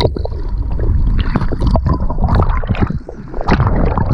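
Sea waves sloshing and churning over a camera held at and just under the surface, gurgling with bubbles, with many sharp clicks and knocks.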